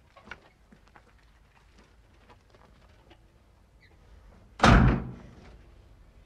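A few faint knocks and clicks, then a single loud slam about four and a half seconds in that dies away within half a second.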